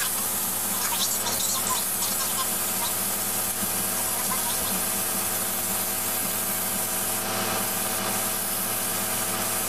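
Harbor Freight mini touch-up spray gun hissing steadily as its compressed air atomizes paint onto a steel wheel, with a steady hum underneath.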